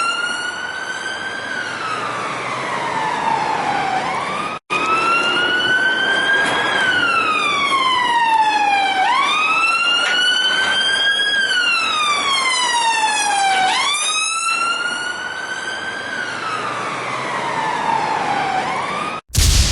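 Siren wailing in a repeating cycle, each rise quick and each fall slow, about four to five seconds per cycle. It cuts out briefly once, and near the end it breaks off into a short, loud burst of noise.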